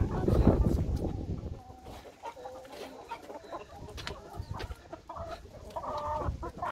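A flock of chickens clucking, with short hen calls throughout, the clearest near the end. A low rumble sits under the first second.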